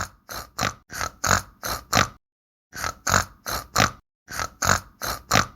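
Pig grunting in a quick series of short, rough grunts, about three a second, in runs broken twice by brief silences.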